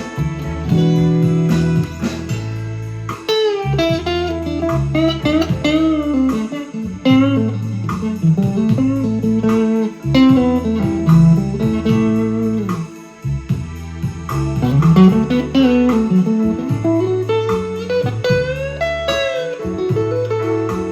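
Harley Benton TE-62CC Telecaster-style electric guitar playing a blues jam in A, with lead lines full of string bends over steady low notes.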